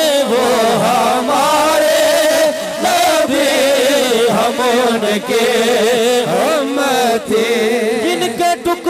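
Voices chanting a devotional naat in praise of the Prophet, long drawn-out notes wavering up and down in an ornamented melody.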